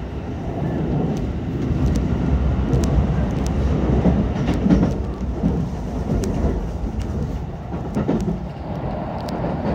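Keikyu limited express train running at speed, heard from inside the passenger car: a steady low rumble of wheels on the track with scattered sharp clicks, swelling louder about halfway through.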